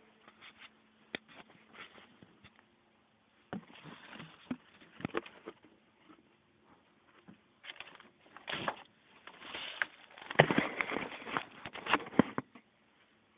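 Handling noise from fuel pump module parts as a new fuel level sensor is fitted: scattered clicks, taps and rustling in two busy stretches, about four to five seconds in and again from about eight to twelve seconds in, the loudest near ten to twelve seconds.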